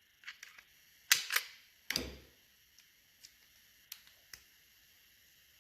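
Sharp metallic clicks and clacks of a screwdriver and bicycle disc brake pads knocking against the caliper as the old pads are worked out. The loudest come about a second in, then one with a duller knock at about two seconds, followed by a few fainter ticks.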